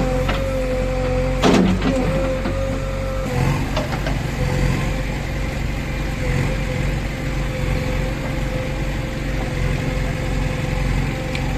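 Backhoe loader's diesel engine running steadily with a constant whine over it, and a sharp metallic clank about a second and a half in.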